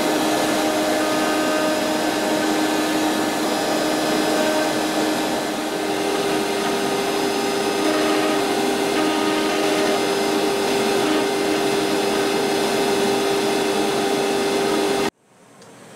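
CNC router spindle milling notches into a mahogany strip: a steady whine over a rushing cutting noise. The whine steps up in pitch about six seconds in, and the sound cuts off abruptly near the end.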